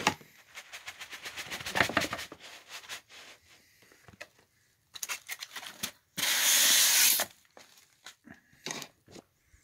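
Handling noise from a cardboard box being tipped and its styrofoam packing slid out: a quick run of clicks and rattles, then a loud scraping rush lasting about a second just past the middle, and a few scattered knocks.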